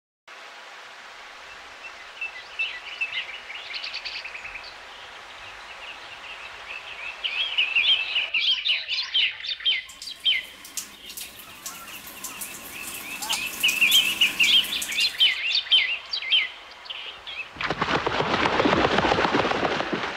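Small birds chirping and twittering in quick, overlapping calls, busiest in the middle. Near the end comes a couple of seconds of loud rushing noise.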